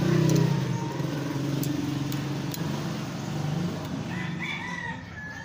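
A rooster crowing over a steady low engine hum that fades out over the first four seconds.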